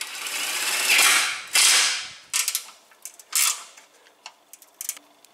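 A hand-held power tool runs in two bursts, undoing the fasteners that hold the car's front intercooler, followed by several short clicks and clatters of tool and parts.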